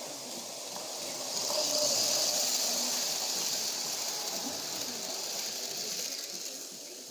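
Lionel O scale passenger train rolling past on three-rail track, a steady high hiss of wheels and motor that swells as the locomotive nears and fades as the last cars go by.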